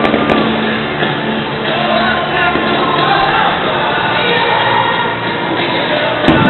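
Music with singing playing loudly, with a sharp firework bang just after the start and another near the end.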